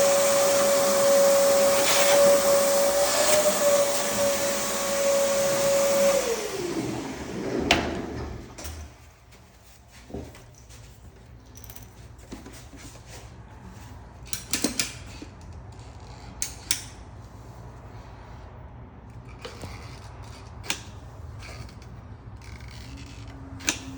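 Vacuum cleaner running with a steady whine, switched off about six seconds in, its motor winding down. After that come a few scattered knocks and clicks.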